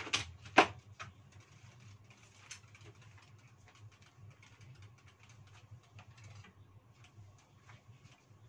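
Two sharp knocks about half a second apart at the very start, then faint scattered crackling from vermicelli frying in a wok over a steady low hum.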